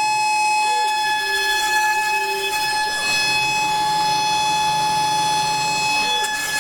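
High-speed VFD milling spindle spinning at 52,000 RPM, a steady high-pitched whine, over the gritty hiss of a fine endmill cutting copper-clad FR4 circuit board. The depth of cut may be a little too deep.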